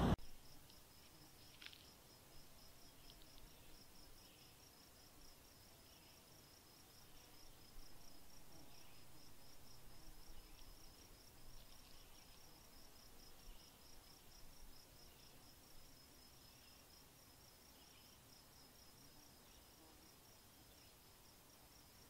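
Faint chirping of an insect: an even, high-pitched pulse repeating several times a second, over quiet outdoor background noise.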